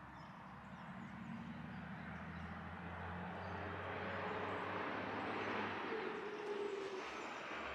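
A road vehicle driving past at some distance, its tyre and engine noise swelling gradually and easing slightly near the end.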